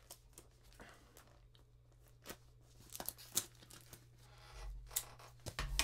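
Plastic packaging being cut and torn open by hand: crinkling and tearing, with scattered short crackles.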